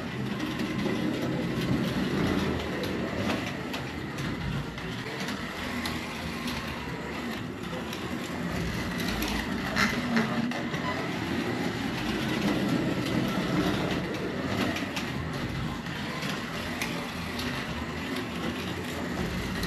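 Slot car track-cleaning truck running laps on the track, its cleaning pad dragging along the track surface: a steady running noise with a few light clicks along the way.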